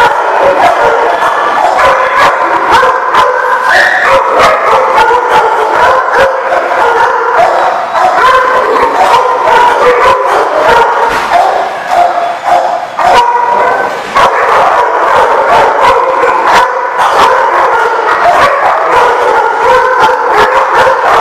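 A pack of dogs barking without a break, many barks overlapping at once in a loud, dense din.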